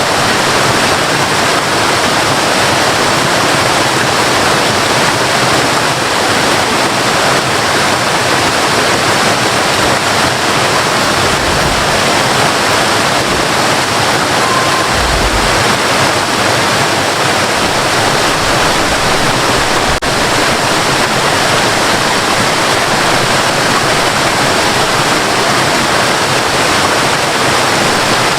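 Waterfall: water pouring and rushing in a steady, loud roar of white noise.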